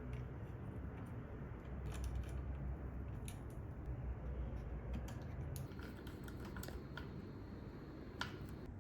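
Handling noises: scattered light clicks and taps of small hard parts, a few a second at most, over a steady low rumble.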